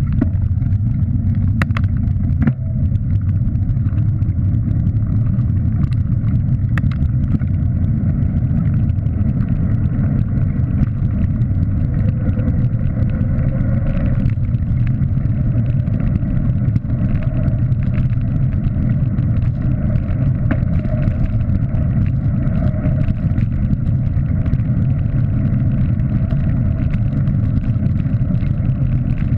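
Steady rushing wind and road rumble on a camera microphone moving at speed along a road, with a few sharp clicks about two seconds in.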